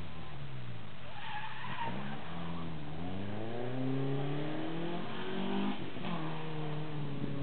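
Daewoo Lanos hatchback rally car driven hard past on a wet circuit, its engine revving up and down, the pitch climbing and dropping with the gear changes. A short burst of tyre noise comes about a second in.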